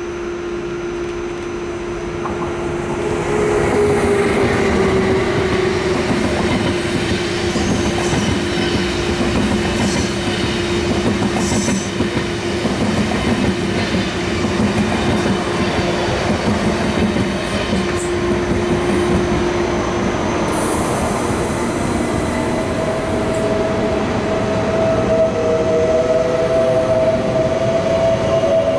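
Deutsche Bahn ICE electric trains moving through a station: rumble and clatter of wheels on the rails with sharp clicks, a steady electric hum that fades out about two-thirds through, then a rising electric whine as the train alongside gathers speed.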